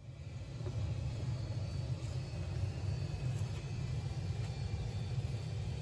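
A steady low rumble that fades in over the first half second and then holds even.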